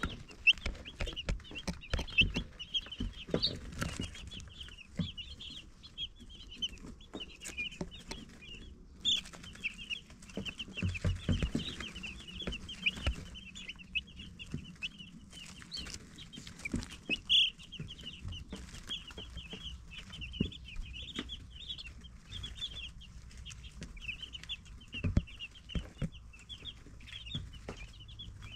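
Baby chicks peeping continuously, many short high cheeps overlapping, with occasional low knocks and rustles among them.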